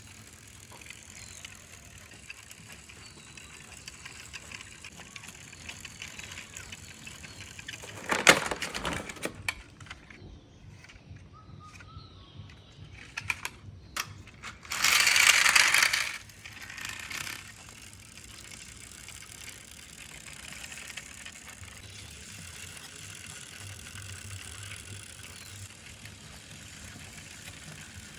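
Plastic toy construction vehicles being handled and driven, with a low steady rattle and scattered clicks. There are two loud scraping bursts, one about eight seconds in and a longer one about fifteen seconds in.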